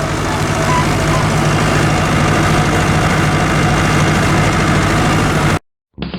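Tractor engine running steadily, loud and close, with a deep, even beat. The sound cuts off abruptly near the end.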